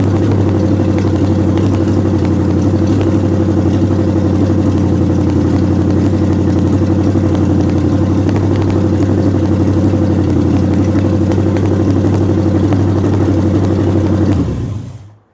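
1929 Chrysler engine running steadily, then winding down and stopping near the end.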